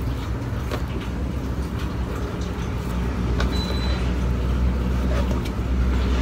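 Steady low rumble, with a few light taps as a plastic bench scraper cuts through bread dough on the counter.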